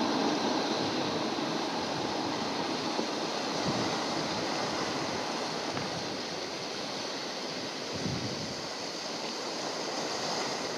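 Steady wash of sea water in the shallows, with wind on the microphone.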